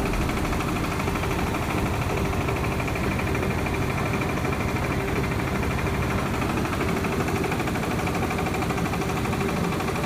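Belt-driven rice mill machinery running steadily, with grain pouring through the machines.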